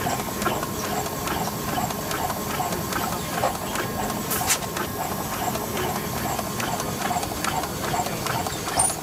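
Rhythmic mechanical clacking, about two a second, over a steady machine hum and hall noise.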